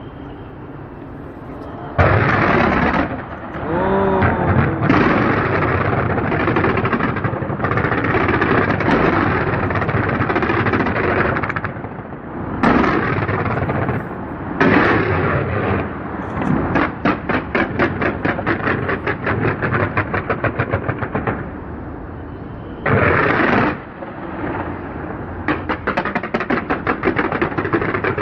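Fireworks display: loud bursts and long stretches of dense crackling, with runs of rapid sharp pops at about five a second.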